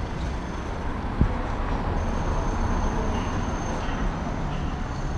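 City street traffic: a steady wash of passing vehicles, with a single knock about a second in and a thin, steady high-pitched tone that comes in about two seconds in.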